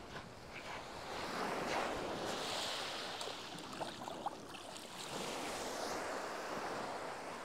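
Small waves breaking and washing up a shingle-and-sand beach, a steady rushing surf that swells and eases, with a few faint clicks partway through.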